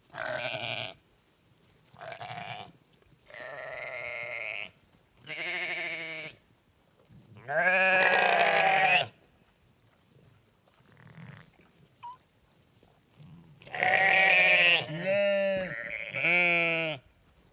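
Sheep bleating: about eight separate baas of differing length, several with a wavering, quavering pitch, split by short quiet gaps, with a longer lull before the last few calls.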